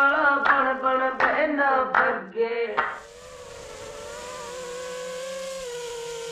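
Music with singing for about the first three seconds, then a steady electric whine with overtones that dips slightly in pitch near the end, like an FPV quadcopter's brushless motors spinning at an even speed.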